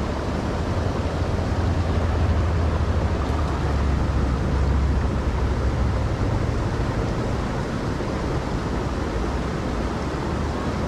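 Steady rushing of a mountain river, with a low rumble swelling in for several seconds in the first half.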